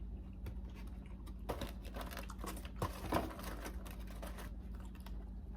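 Close-miked eating sounds: a run of quick, crackly clicks and rustles of chewing food, starting about a second and a half in and lasting about three seconds, over a steady low electrical hum.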